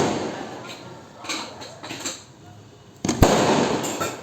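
Firecrackers going off: a few small pops, then one sharp, loud bang about three seconds in that rings out and dies away.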